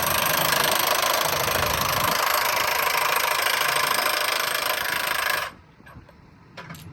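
Power impact wrench hammering on a track bolt at a railroad diamond crossing, a loud, dense, rapid rattle that cuts off suddenly about five and a half seconds in, followed by a few faint clicks.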